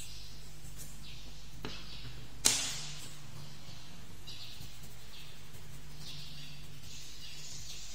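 Coloured pencil scratching on paper in short back-and-forth strokes while a flower is shaded in. About two and a half seconds in comes one sharp click, the loudest sound, as a pencil is set down or picked up on the wooden table, with a smaller click just before it.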